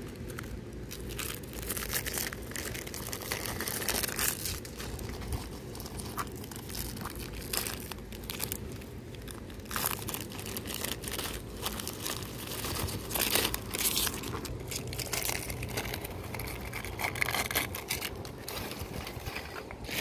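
Plastic biscuit wrapper and carrier bags being handled and torn open, crinkling and crackling in irregular bursts.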